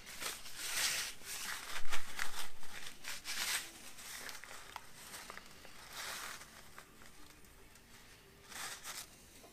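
Plastic crinkling and rustling as thin spring-steel wire is handled in and out of a clear plastic tube, in short irregular bursts with a few light knocks, the loudest about two seconds in.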